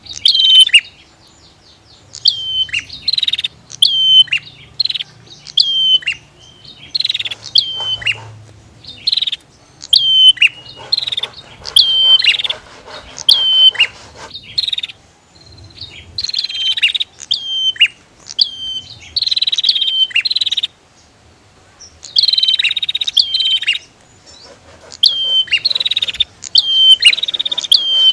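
Bar-winged prinias (prenjak) calling loudly and continuously, sharp repeated notes with quick downward slurs about two a second, the calls of more than one bird overlapping, with brief pauses about halfway through and again a little later.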